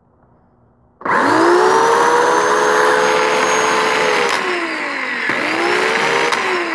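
Poulan 16-inch electric chainsaw starting about a second in and running at a high whine, dipping and spinning back up about five seconds in, then winding down in falling pitch near the end. The saw is powered from a 96-volt battery pack.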